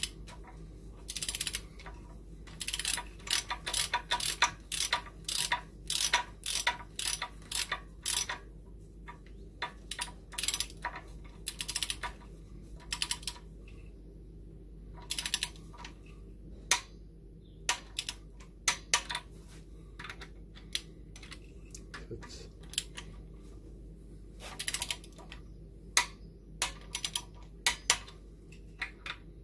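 Torque wrench ratcheting in quick runs of clicks with short pauses, as cylinder head bolts are run down one after another on a first tightening pass to 30 Nm.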